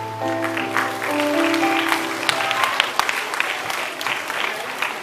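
Audience of children applauding, with held chords of background music underneath that fade out about two and a half seconds in.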